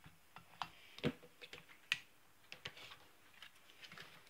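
Faint, scattered clicks and light taps of a spatula and plastic container being handled at a slow cooker, the sharpest about a second and two seconds in.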